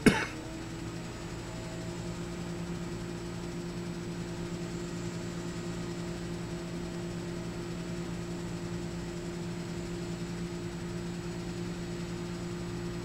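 A sharp click at the very start, then a heavy engine running steadily at idle, a low even hum.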